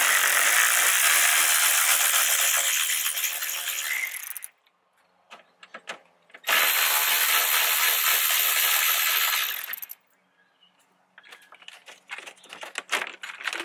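Cordless electric ratchet spinning out the 10 mm bolts that hold the plastic radiator cover, in two steady runs of about four and three seconds. Near the end come a series of light clicks and knocks as the loosened cover is handled.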